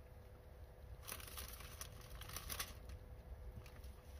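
Plastic food packaging crinkling and rustling as potatoes are handled out of it, mostly between about one and nearly three seconds in, over a faint steady hum.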